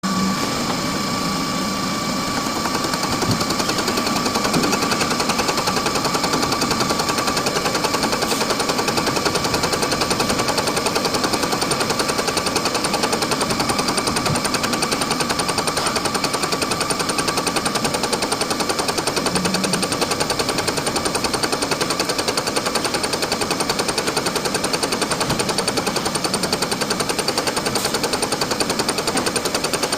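Shop-made fly cutter, a lathe tool bit, spinning on a Bridgeport milling machine and taking an interrupted cut in metal: a steady, rapid chatter of the bit striking the work on each turn, with a high whine from the machine. The footage runs at double speed, which raises the rate and pitch.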